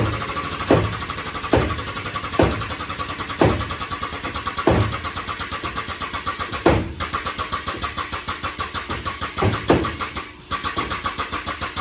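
Vehicle engine running with a fast, even pulsing beat. Sharp surges that fall away quickly come every second or two, and the sound dips briefly near the end.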